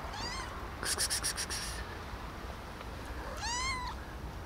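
Grey tabby cat meowing for food twice: a short meow at the start and a longer one about three and a half seconds in. About a second in, a quick run of scratchy clicks.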